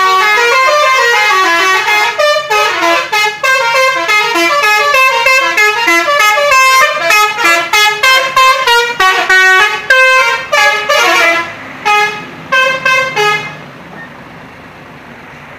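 Indonesian telolet bus horns, multi-tone horns playing quick, stepping melodies, several notes sounding at once. The horns are loud throughout, then stop about 13 seconds in, leaving a steady low background.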